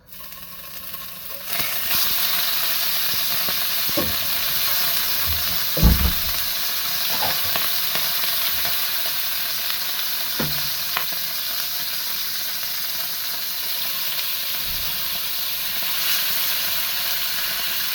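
Food sizzling and frying in a hot pan, coming up sharply about a second and a half in and then holding steady, with a few knocks of a utensil against the pan.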